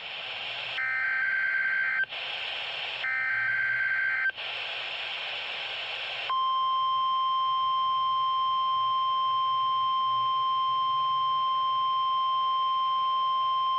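NOAA Weather Radio Emergency Alert System test signal: two short, shrill bursts of SAME digital header data with radio hiss between them. About six seconds in, the steady 1050 Hz warning alarm tone starts and holds, sounding the Required Weekly Test.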